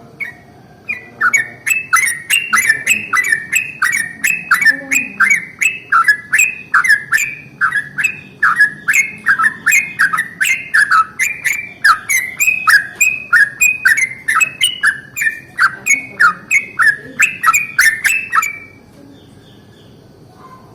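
Yellow-vented bulbul singing a long rolling run of quick, down-slurred notes, about two to three a second, which stops a little before the end.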